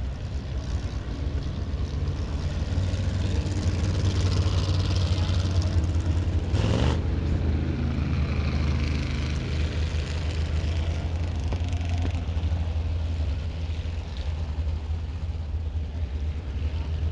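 Vintage sprint car and midget racing engines running laps on a dirt oval, a steady drone that swells as cars go by. There is a brief loud burst of noise about seven seconds in.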